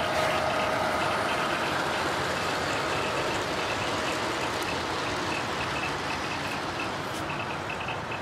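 Large-scale model diesel locomotive and its string of hopper cars rolling past on track, a steady rumble of wheels on rail with a faint motor whine, loudest in the first second and slowly fading as the train moves away.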